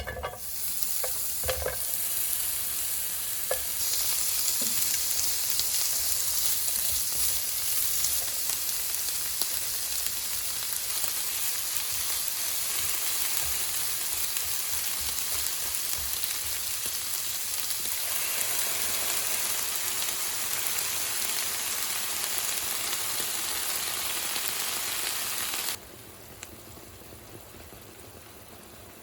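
Food sizzling as it fries in a hot pan, with a few knocks of a utensil against the pan in the first couple of seconds. The sizzling cuts off suddenly near the end, leaving a quieter hiss.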